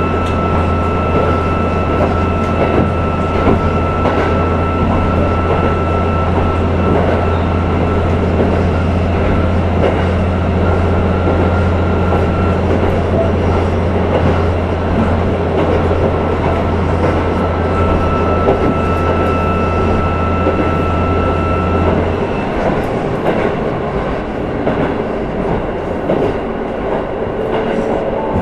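Running sound inside a KiHa 11 diesel railcar under way: steady wheel and rail noise over a low engine drone, with a thin whine that comes and goes. About three-quarters of the way through, the low drone stops and the noise eases, as power is shut off and the car coasts.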